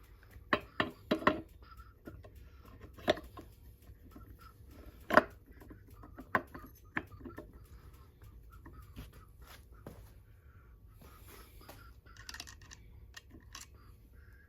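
Scattered sharp clinks and knocks of hand tools and small engine parts being handled and set down while a moped engine is reassembled by hand. A quick cluster of knocks comes in the first second and a half, and the loudest single knock comes about five seconds in.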